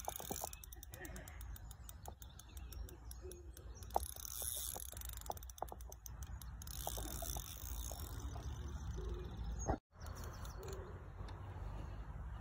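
Small birds chirping and singing, with a steady low wind rumble on the microphone and a few faint scattered clicks. The sound drops out for an instant near the end.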